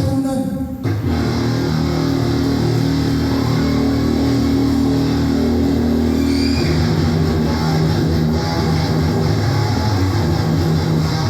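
Rock music with electric guitar and bass playing sustained, heavy chords.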